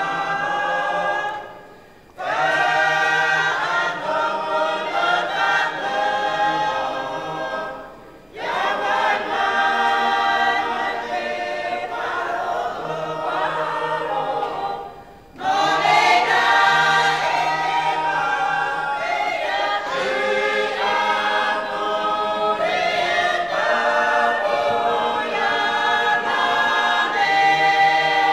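A choir singing unaccompanied in harmony, in long phrases separated by short pauses for breath, about two, eight and fifteen seconds in.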